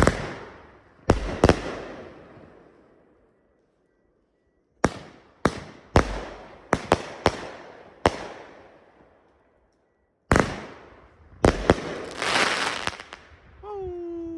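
Consumer 500 g fireworks cake firing, heard as about a dozen sharp bangs in irregular clusters, each echoing away. Near the end comes a longer crackling stretch.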